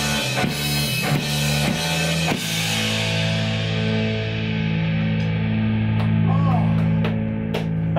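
Live rock band with a drum kit and two electric guitars playing; about two and a half seconds in the drumming stops and the band holds a last chord that rings on while the cymbals fade, the end of the song.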